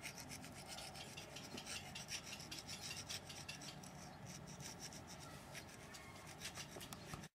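A hand rasp scraping across a carved stone sculpture in quick, repeated short strokes.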